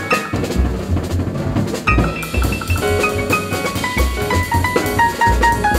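Background music with a drum beat and a melody of short pitched notes.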